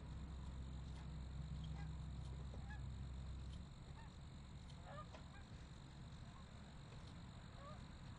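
Crickets chirping in a steady high trill, with scattered short animal calls over it and a low hum that stops about three and a half seconds in.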